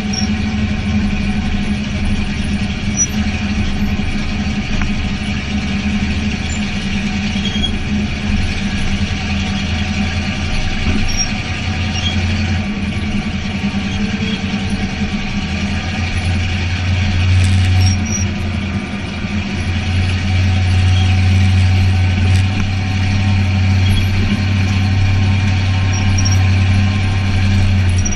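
Race car engine running at a fairly steady pitch, heard from inside the cockpit. It gets louder about two-thirds of the way in.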